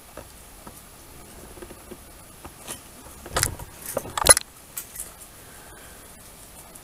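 A few light clicks, then a short burst of clinking and rattling about three to four and a half seconds in, ending in a sharp clack, the loudest sound here.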